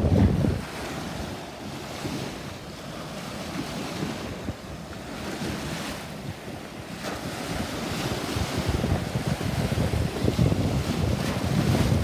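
Small ocean waves breaking and washing up the beach, with wind buffeting the microphone in gusts, heaviest at the start and through the last third.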